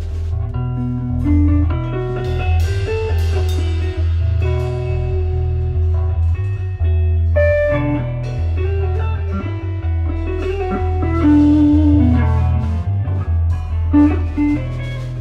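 Free-form instrumental rock: electric guitar playing melodic lines over a heavy bass guitar and a drum kit with cymbal hits.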